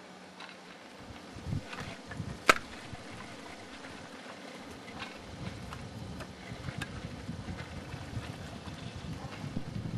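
Wind rumbling on the microphone, gusting and growing stronger through the second half. A single sharp click about two and a half seconds in is the loudest sound.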